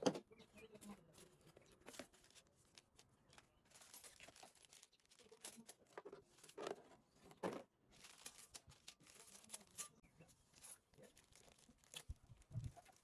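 Quiet handling noises of hand work on parts: scattered light clicks and knocks, with short stretches of rustling or scraping.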